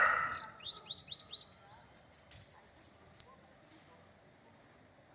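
Bananaquit (sibite) singing: a rapid, high-pitched song of quick repeated notes that stops about four seconds in. A short noise comes right at the start.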